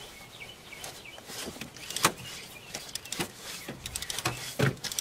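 Scattered clicks and a few sharp metallic knocks from a hand tool being turned against a fitting on the cylinder head of a 6.0 Power Stroke diesel. The loudest knocks come about two, three and four and a half seconds in.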